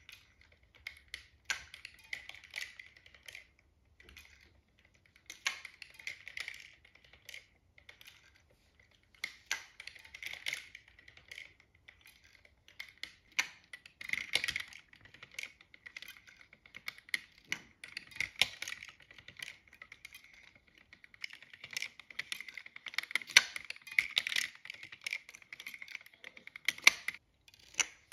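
Hand-cranked wooden automaton mechanism clicking and clattering as its wooden and brass gears, cams and levers turn, in uneven runs of clicks with short pauses between.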